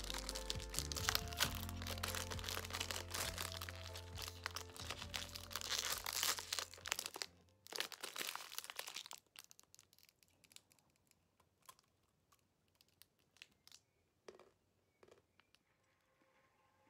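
Background music with a steady low bass over a snack wrapper crinkling as it is unwrapped. The music stops about seven seconds in, leaving scattered soft crinkles and clicks.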